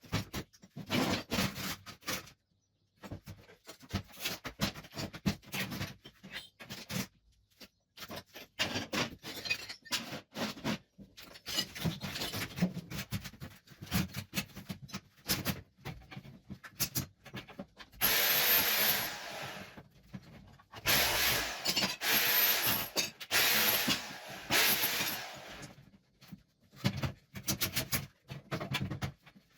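Old ceramic wall tiles being chipped off: irregular knocks, scrapes and cracking of breaking tile. Twice in the latter half, a power tool runs in longer bursts with a high whine.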